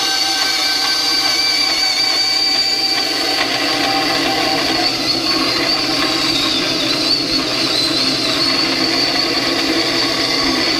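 A 10-inch benchtop bandsaw, slowed with a speed-reduction pulley kit and running a metal-cutting blade, cutting through 1x3 hollow box tubing with .063 wall. A loud, steady sawing whine with a high ringing squeal that wavers in pitch from about halfway through.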